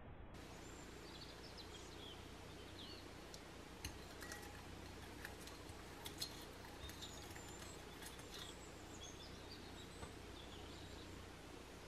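Faint steady background noise with distant birds chirping now and then, and a few light clicks of a plastic measuring spoon against a glass bowl a few seconds in.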